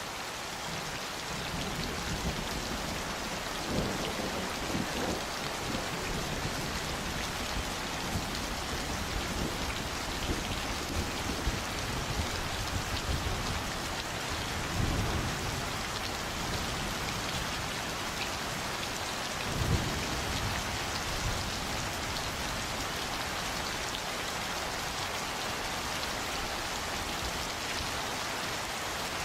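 Steady rain falling, a dense even hiss of drops, with low rumbles of thunder swelling up several times.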